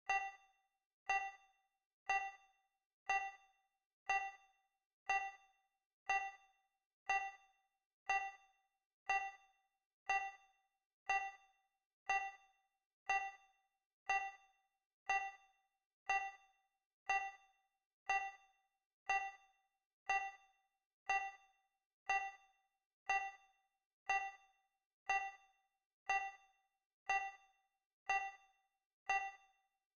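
Countdown timer's tick sound effect: a short, bright electronic ding once a second, each one dying away quickly, marking each second counted down.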